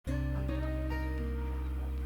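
Background music: short plucked-string notes over steady held low notes, starting abruptly at the very beginning.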